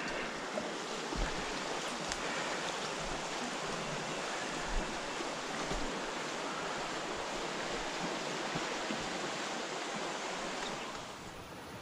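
Steady rushing of a fast mountain river, with a few faint low thumps; the level drops a little near the end.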